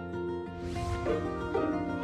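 Light instrumental background music with plucked-string notes over a steady bass.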